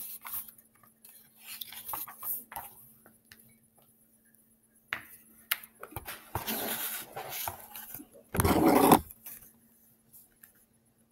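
A picture book being handled and opened: rustling and scraping of the cover and pages, with one loud, heavy bump near the end.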